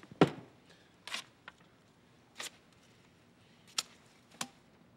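A string of sharp clicks and knocks, about one a second, from small objects being handled at a desk; the first, just after the start, is the loudest, a dull thump.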